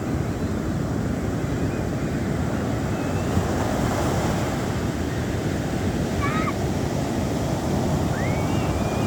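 Big ocean surf breaking on the beach: a continuous, dense rush of waves, with wind on the microphone.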